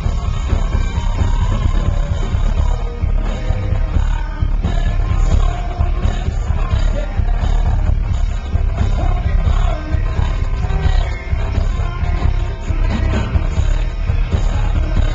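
Live rock band playing loud, with electric guitars, bass and drums and a male lead vocal, heavy on the bass as an audience phone or camera picks it up in the hall.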